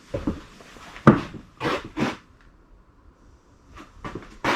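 A handful of short knocks and rustles, like things being handled and set down, with a louder knock near the end.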